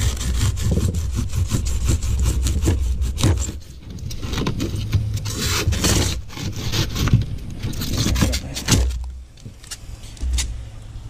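Beaded polystyrene foam being broken up and pulled out by hand through a hatch hole in a plastic boat hull: a quick, irregular run of crunching, squeaking and scraping, with quieter spells about four seconds in and near the end.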